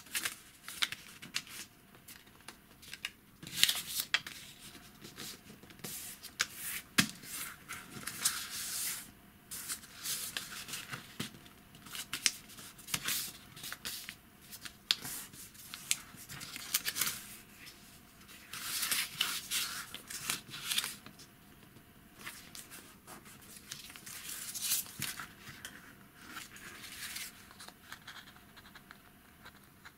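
A strip of thin paper handled, folded and creased by hand: repeated rustling, sliding and crinkling with sharp clicks, in uneven bursts. Near the end, scissors begin cutting into the paper.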